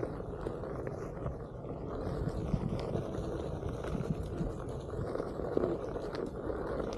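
Onewheel electric board being ridden: a steady low rumble of its tyre rolling over the ground, with scattered small clicks and knocks.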